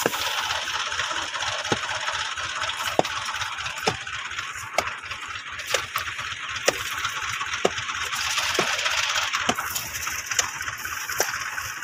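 Diesel tractor running a tractor-driven thresher: a steady mechanical rushing over a low engine throb, with a sharp metallic click about once a second.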